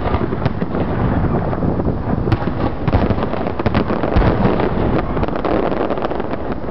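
Fireworks display: aerial shells bursting in a dense barrage, many bangs in quick succession running together over a continuous noisy din.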